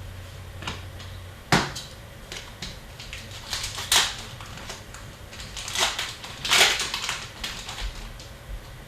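Hockey trading cards being handled and set down: scattered light clicks and short rustles, a few louder ones about a second and a half in, around four seconds and between six and seven seconds.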